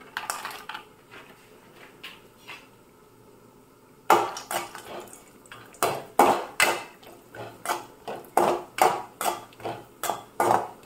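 Perforated metal ladle stirring cashews in ghee in a metal kadai, clinking and scraping against the pan. The knocks start about four seconds in and come irregularly, one or two a second. Before that there are only a few faint clicks.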